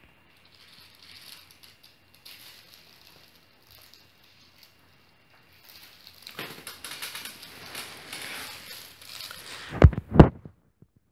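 Five-week-old puppies scuffling over a plush toy on blankets: rustling and crackling of the bedding and toy, louder from about six seconds in, then two loud thumps in quick succession near the end.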